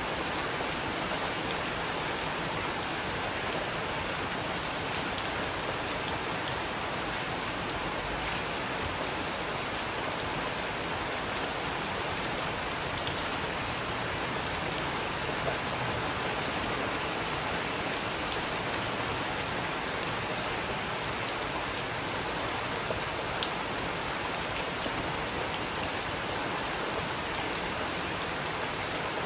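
Steady, even rain with a handful of single sharp crackles from a wood fire scattered through it.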